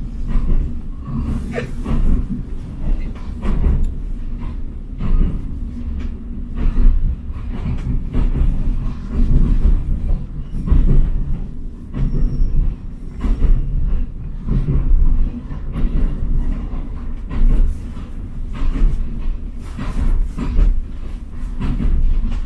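Train running along the track: a heavy low rumble that swells and fades, with the wheels knocking over rail joints.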